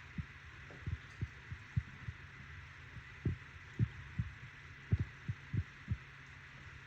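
Large pot of chicken broth with dumplings at a boil, the thickened liquid bubbling with irregular low bloops, over a faint steady hum.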